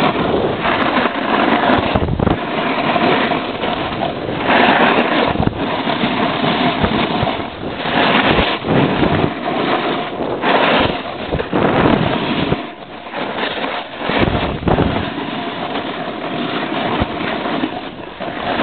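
Snowboard riding down a run on warm spring snow, its base and edges hissing and scraping as it goes, swelling and easing through the turns. Wind buffets the microphone.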